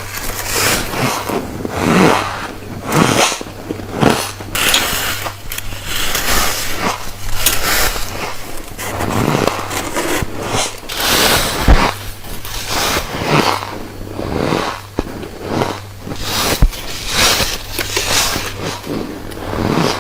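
Refrozen white freezer frost being bitten and chewed close to the microphone: repeated crisp, squeaky crunches, about one a second.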